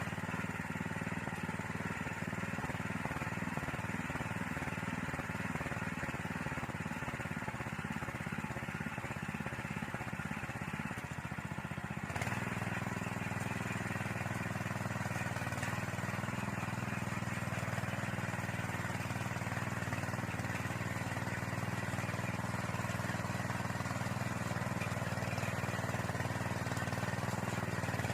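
Small engine of a walk-behind soil tiller running continuously, uneven at first and settling to a steadier, even note about twelve seconds in.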